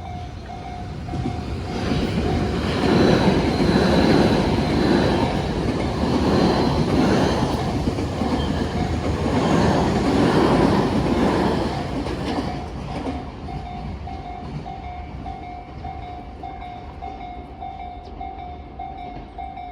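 Tobu Railway electric train 51007F passing over a level crossing: a loud rumble with wheels clattering over the rail joints in three surges as the bogies go by, fading out after about twelve seconds. Under it the crossing's warning bell rings on, a quick repeating ding that is left alone once the train has gone.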